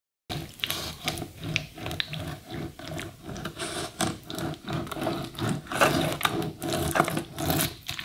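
Serrated knife sawing through the wax cappings of a full honeycomb frame in quick back-and-forth strokes, about three or four a second, a rasping scrape. This is the uncapping of the comb before the honey is extracted.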